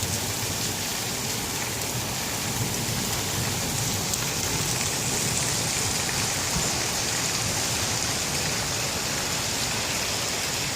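Rain falling steadily and hard during a thunderstorm.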